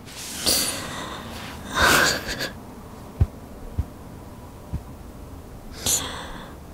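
A distressed woman's gasping breaths: three heavy, shaky breaths, about half a second in, around two seconds in and near the end, with a few soft low thumps between them.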